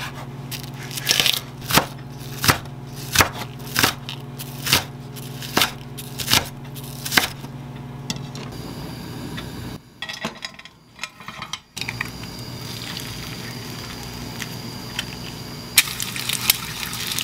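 Kitchen knife chopping the green part of a Korean leek on a wooden cutting board: about ten slow, even chops, one every three quarters of a second. Near the end, an egg starts sizzling as it fries in an oiled pan.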